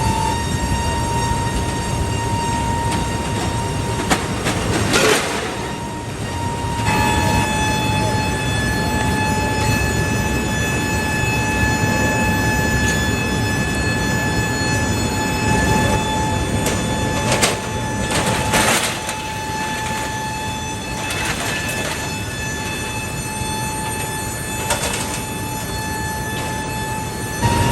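Heavy industrial machinery running: a steady rumble under a high whine that shifts pitch about seven seconds in, with a few sharp metallic bangs.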